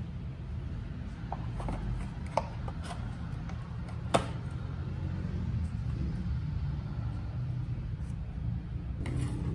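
Light taps and clicks of a paper takeout box being handled and set on a table, with one sharper knock about four seconds in, over a steady low hum.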